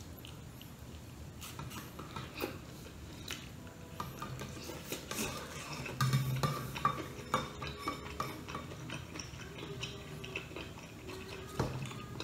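Bamboo skewers knocking and scraping against a metal bowl, a scatter of short clicks and clinks.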